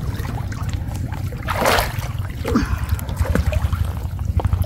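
Water sloshing and trickling as people wade through a canal, with one louder splash about one and a half seconds in, over a steady low rumble.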